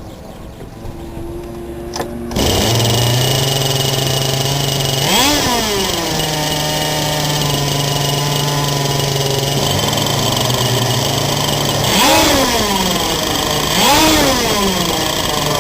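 Twin Zenoah 22.5 cc two-stroke petrol engines of an RC racing catamaran running, coming in loud about two seconds in. They hold a steady note, with three quick revs that rise and fall in pitch.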